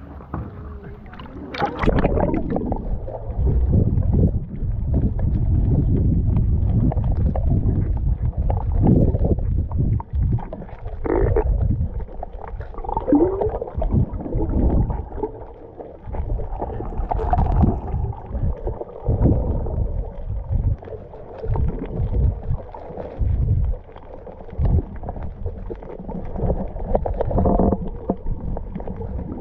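Water sloshing and gurgling around a camera moving just under the sea surface: a muffled, uneven rumble that surges and drops, with a few short wavering tones.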